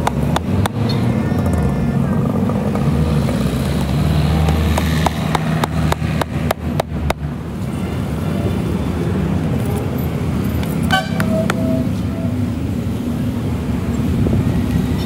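Steady low rumble of engines or traffic running throughout, with a hammer tapping nails into a tyre: a quick run of sharp taps around the middle and a few single taps elsewhere.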